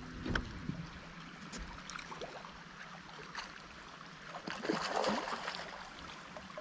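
Water splashing and gurgling as a hooked smallmouth bass is played to the side of the boat. The splashing swells about four to five seconds in as the fish nears the surface.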